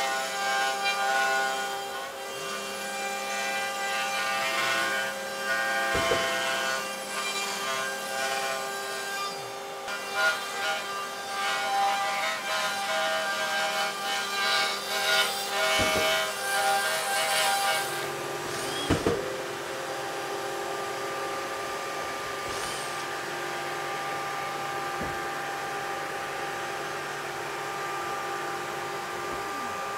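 Yeti Smartbench CNC router cutting plywood cabinet parts: a steady router whine over the rough noise of the bit cutting through the sheet. About two-thirds of the way through the cutting noise stops and a quieter, steady hum carries on.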